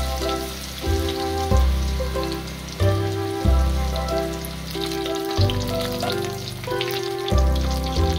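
Tempura-battered kabocha squash slices deep-frying in hot oil in a wok, a steady crackling sizzle. Background music with a bouncy bass line plays over it and is the loudest thing.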